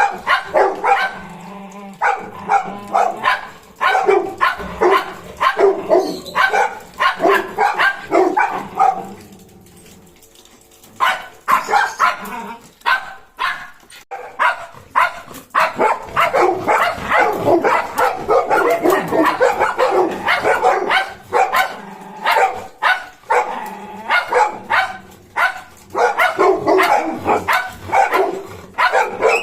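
Dogs barking over and over in short, sharp barks, with a brief lull about ten seconds in.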